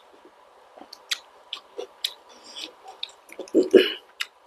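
Close-miked chewing of balut (fertilized baby duck eggs) with vegetables: sharp wet mouth clicks and smacks several times a second, with a louder chewing burst about three and a half seconds in.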